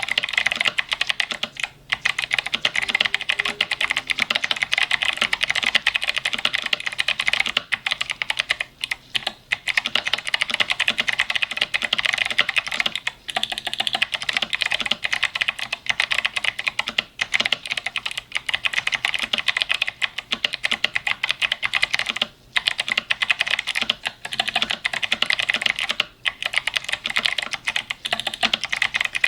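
Continuous fast typing on an 8Bitdo Retro Mechanical Keyboard with clicky Kailh switches: dense, bright keystroke clicks with a few brief pauses.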